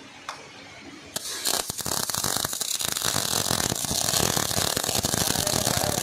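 Stick electrode arc welding: about a second in the arc is struck and burns with a steady dense crackle, then breaks off near the end.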